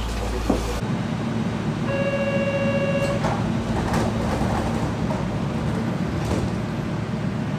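A door-closing buzzer sounds once, a steady buzzing tone held for about a second. Then the sliding doors of a stopped Japanese commuter train close with a knock, over the train's steady low hum.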